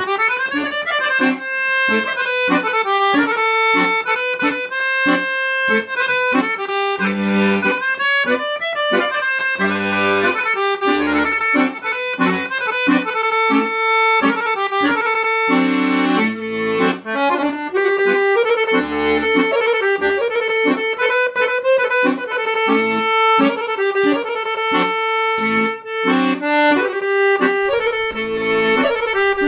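Accordion music: a quick melody of changing notes over low bass notes that repeat in a steady rhythm.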